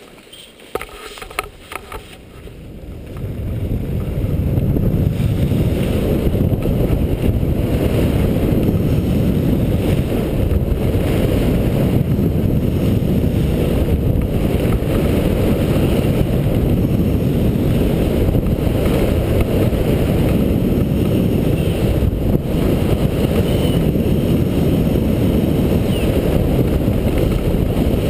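Wind rushing over an action camera's microphone during a fast downhill ski run, mixed with the scrape of skis on groomed snow. A few clicks come in the first two seconds, then the rush builds over about two seconds and stays loud and steady.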